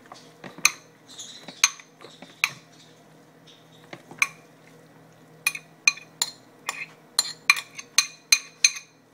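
Glass bowl of canned tuna knocked against a plastic container to empty it: sharp clinks, a few spaced ones at first, then a quicker run of about ten from about halfway.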